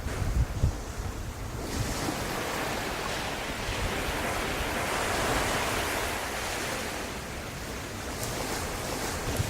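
Wind buffeting the microphone, then an even rush of sea surf that swells over a few seconds and eases off.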